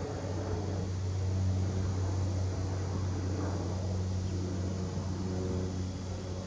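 Faint rumble of a jet airliner passing high overhead, under a steady low mechanical hum.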